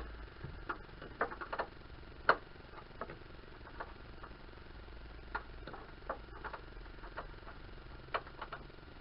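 Irregular sharp metallic clicks and clinks, about a dozen, the loudest a little over two seconds in, from a wrench being worked on a pulley bolt in the engine bay.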